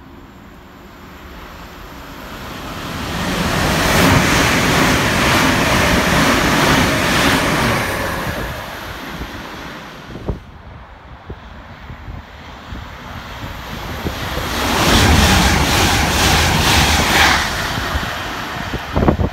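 A train passing through the station, its rushing noise swelling over a couple of seconds and fading away. After a break, a second train passes with a rapid clatter of wheels over the rails, dying away near the end, with wind buffeting the microphone.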